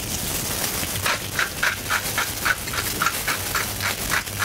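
A spice mill twisted in quick strokes, about three to four grinding crunches a second starting about a second in, seasoning the searing poussin roulade. Under it, olive oil sizzles in the pan.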